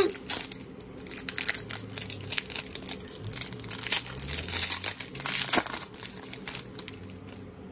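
Foil wrapper of an Upper Deck Series 2 hockey card pack being torn open and crinkled by hand: a dense run of crackling that dies away near the end.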